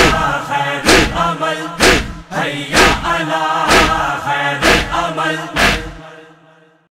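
A Shia noha chanted by male voices, with a heavy, regular stroke of chest-beating (matam) about once a second keeping the beat. The chant and the beating fade out shortly before the end.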